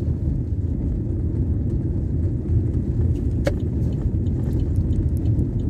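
Steady low rumble of a car's road and engine noise, heard from inside the moving car, with a single brief click about halfway through.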